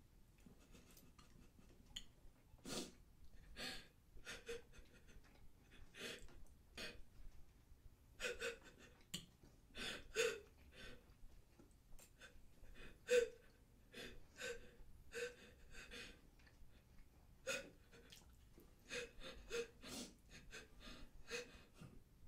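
A woman crying quietly: faint, irregular gasping, catching breaths, coming more often about a third of the way in.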